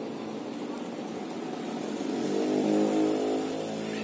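Engine of a motor vehicle going past, a steady pitched drone that grows louder about two seconds in and peaks near three seconds before easing off.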